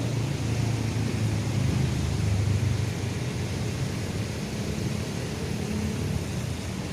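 Steady city-street ambience: a low rumble of passing traffic over a constant hiss.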